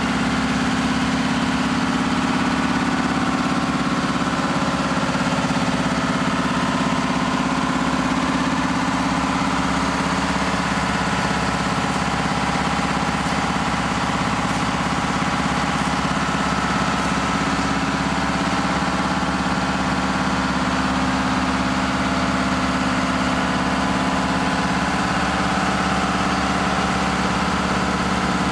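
Fire engine's engine running at a steady speed, driving its water pump under load to feed a ground-monitor nozzle spraying a stream of water.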